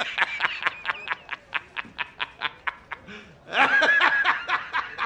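A man laughing hard: a rapid run of short ha-ha-ha pulses, about five a second, then a louder, longer high-pitched burst of laughter about three and a half seconds in.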